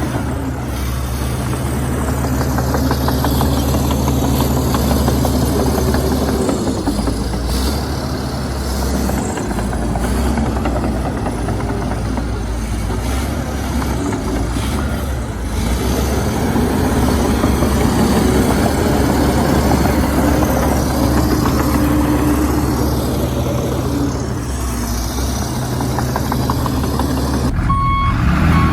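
Komatsu D61EX bulldozer's diesel engine running under load, its note rising and easing every few seconds as it works. Near the end a reversing alarm starts beeping.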